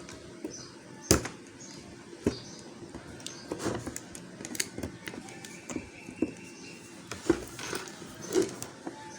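Irregular small clicks and knocks of hand tools on a hard disk drive's metal casing as its screws are taken out, with a sharp knock about a second in being the loudest.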